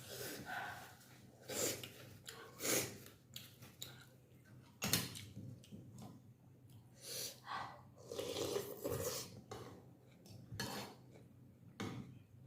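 Utensils clinking and scraping against a bowl of vegetable thukpa noodle soup during eating, in irregular short bursts, with one sharp clink about five seconds in.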